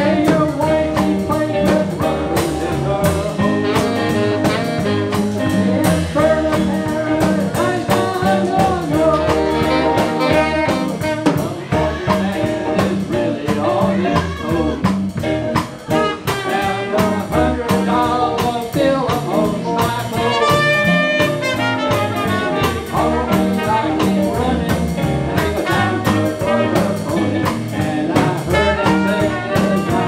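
Live jazz band playing an uptempo blues groove on drum kit, keyboard and hollow-body electric guitar, with a trumpet playing lead over it.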